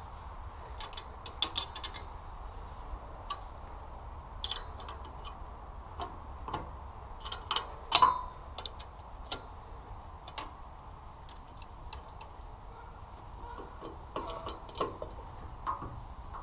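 Irregular metallic clicks and clinks of a small wrench working the exhaust flange bolts on a 168F single-cylinder diesel engine, the sharpest about a second and a half in and again about halfway through.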